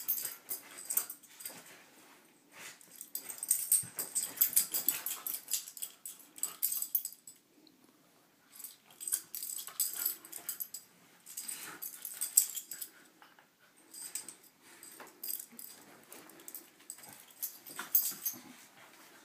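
Two corgis play-fighting on a bed: dog grunts and breathy noises mixed with the rustle of the duvet under them. The scuffling comes in bursts of a few seconds with short lulls between.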